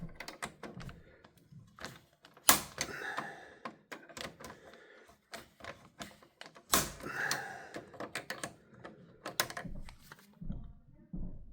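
Torque screwdriver tightening breaker terminal screws: a run of irregular sharp clicks, the tool's clutch slipping at its set torque, with two louder knocks of metal on the panel about two and a half and seven seconds in.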